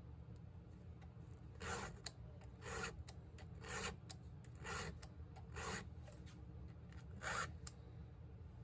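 Hand file stroking across the cutters of a Stihl MS261's saw chain during sharpening: six rasping strokes, roughly one a second.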